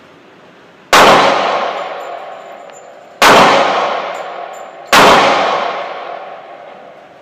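Three gunshots fired in an indoor shooting range, the second about two seconds after the first and the third under two seconds later. Each is very loud and rings out in a long echoing decay off the range walls.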